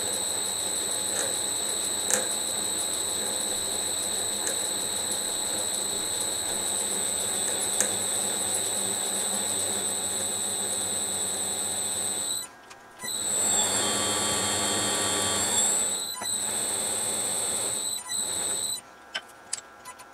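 Smart & Brown 1024 lathe running under power while its cutter screw-cuts a groove in a brass clock fusee, giving a steady high-pitched whine. The sound drops out briefly about two-thirds of the way through and cuts out again a few times near the end.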